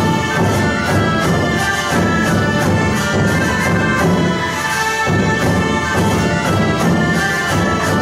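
Orchestral show music with brass and a steady beat.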